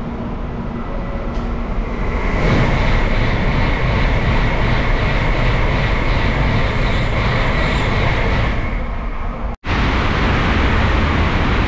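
Shinkansen Nozomi bullet train passing through a station at top speed without stopping: a rushing roar of wind and wheels that swells about two seconds in and stays loud, with a steady high whine over it. The sound cuts out for an instant near the end, then the roar resumes.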